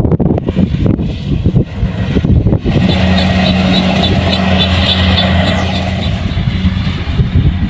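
Kubota rice combine harvester's engine running with a steady drone, coming in clearly about three seconds in after wind buffeting the microphone, with a faint, even, high ticking over the drone.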